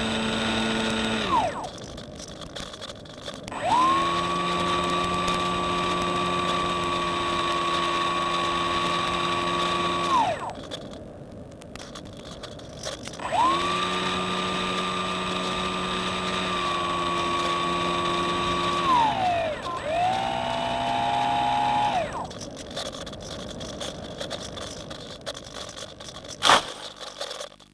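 Reely Phönix model plane's motor and propeller whining at steady throttle in several runs of about six seconds, each spinning up and winding down with a short glide in pitch, with a rushing hiss between runs while the plane glides unpowered. A brief lower-pitched burst follows, then a sharp knock near the end.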